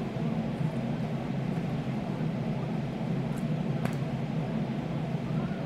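Steady mechanical hum, with two faint ticks about three and a half seconds in as a plastic spice shaker is tipped and shaken.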